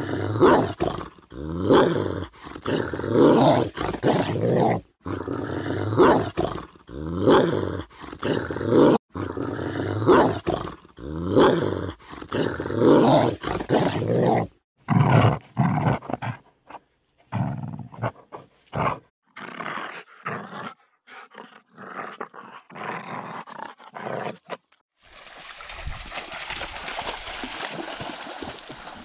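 A dog growling in repeated drawn-out vocal bursts, about one every second, through the first half, followed by a few scattered shorter sounds. Near the end comes a steady rush of flowing creek water.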